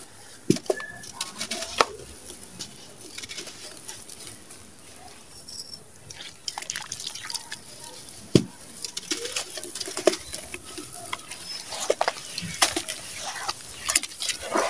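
Gritty sand-cement being crumbled and squeezed by hand in a basin of water: wet crunching and irregular sharp crackles, with splashes and drips.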